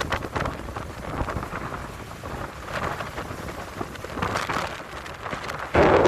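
Sea wind buffeting the microphone, a rough crackling rumble that comes in gusts. A much louder gust hits suddenly near the end.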